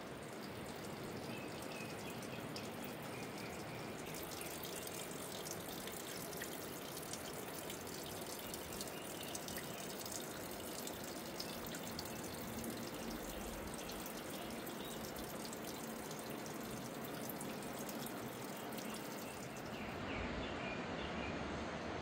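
Spring water seeping out of a moss-covered rock wall and falling as many small drips and trickles, a steady patter of water over a soft splashing hiss.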